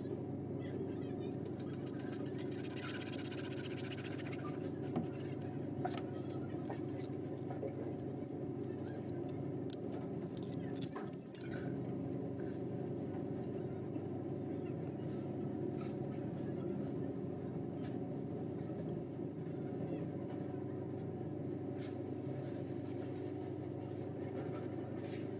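A steady low mechanical hum runs throughout. Light clicks and taps of plastic pipe and fittings being handled sit on top of it, with a short spell of scratchy scraping about two seconds in and a sharper knock near the middle.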